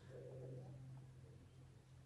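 Near silence: faint outdoor ambience with a steady low hum and a brief soft low murmur in the first second.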